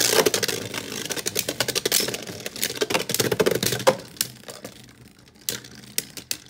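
Two Beyblade Burst tops, Astral Spriggan and Savior Valkyrie, spinning and clashing in a clear plastic stadium: a rapid clattering rattle of hits for about four seconds, then it calms to an occasional single knock.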